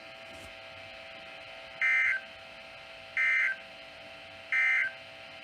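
Emergency Alert System end-of-message signal: three identical short digital data bursts about 1.3 seconds apart, marking the end of the flood warning broadcast.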